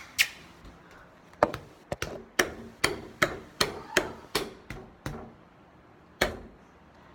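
Quick footsteps on a hard floor, a run of sharp knocks at about two or three a second for some four seconds, then one last step a second later.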